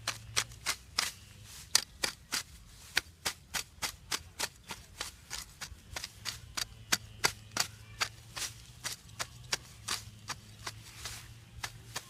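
Machete blade chopping rapidly into grass turf and soil, clearing a patch down to bare earth: a quick, even run of sharp strikes, about three or four a second.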